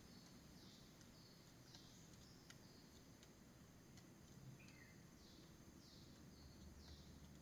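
Near silence with faint, repeated high calls from a forest animal, each note dropping in pitch, sounding a little under once a second, with a few faint ticks.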